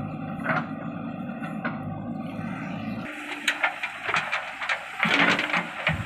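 Heavy diesel engine running steadily, with two brief noises over it. About halfway the sound changes abruptly to a string of sharp clatters and scrapes, loudest near the end.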